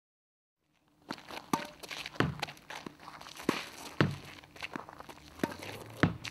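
Tennis balls being hit with rackets against a tennis backboard and bouncing on the court. After a silent start, an irregular run of sharp hits and thuds begins about a second in, with the loudest hits coming every second or so.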